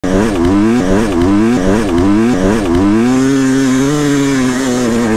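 Two-stroke enduro dirt bike engine being blipped, its pitch swinging up and down about twice a second for the first three seconds, then holding steadier on the throttle.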